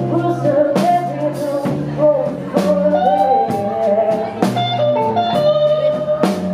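Live band playing a slow blues: an electric guitar bends notes over an electric bass line, with drum strikes about once a second.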